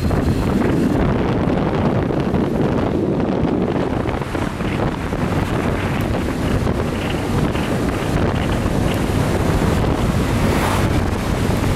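Steady wind rush buffeting the microphone of a moving motorcycle, with its engine running steadily underneath.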